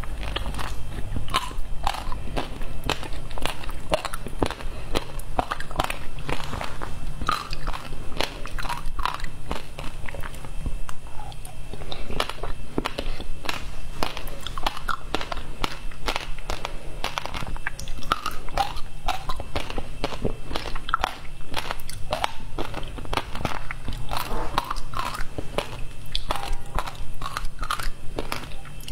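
Close-miked chewing of frozen passion fruit ice, a steady run of many quick, sharp crunches as the ice breaks between the teeth.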